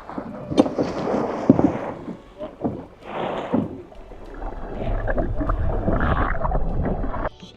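Boat on open sea: water rushing and splashing with wind on the microphone, and a steady low engine rumble joining about halfway through before it cuts off near the end.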